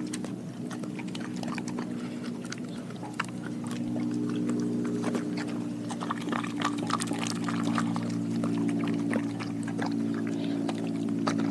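German shepherd mix licking, mouthing and chewing a whole raw mackerel pike and sardine from a glass bowl: wet smacking and clicking, sparse at first and busier from a few seconds in. A steady low hum runs underneath.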